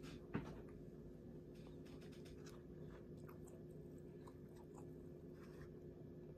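Faint chewing and soft clicks of a fork picking at food in a foam takeout container, over a steady low hum. One brief, sharper knock about half a second in.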